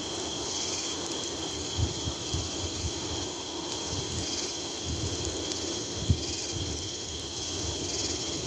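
Crickets chirping steadily, with wind buffeting the microphone in uneven low rumbles and one sharper low thump about six seconds in.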